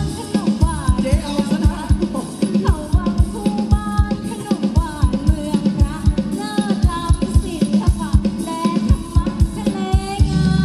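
Live band music for Thai ramwong dancing: a steady drum beat of about three strokes a second under a melody line that bends in pitch. The heavy bass drops out just after the start and comes back near the end.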